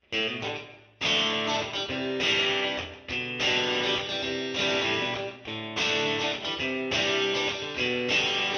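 Background music led by strummed guitar chords, a new chord struck about once a second.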